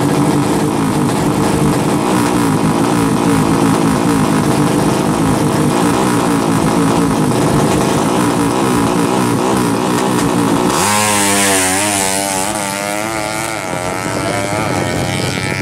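A 200 cc SOHC four-stroke drag bike engine revving at the start line, its pitch wavering up and down. About eleven seconds in it launches, and the engine pitch climbs and drops in steps as it shifts up through the gears under full throttle.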